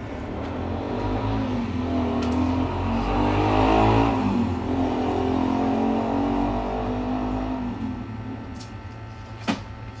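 A motor vehicle's engine passing by, growing louder to a peak about four seconds in and fading away after about eight seconds, over a steady low hum; a sharp click near the end.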